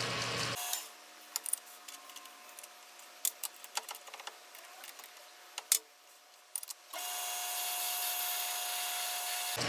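Metal lathe running, cutting out about half a second in; then scattered light metallic clicks and taps of tool handling, and the lathe running again from about 7 seconds.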